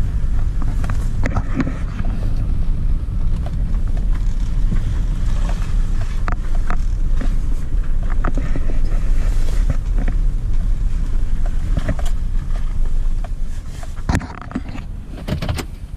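Vehicle driving: a steady low rumble of engine and road noise with scattered knocks and rattles, easing off about two seconds before the end.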